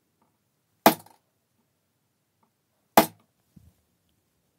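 Two sharp taps of a small tool on metal, about two seconds apart, each ringing briefly. A faint softer knock follows the second.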